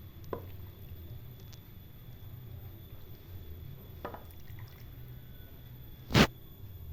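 Liquid in a cooking pot dripping and bubbling softly over a steady low hum, with a few faint ticks and one sharp, loud click about six seconds in.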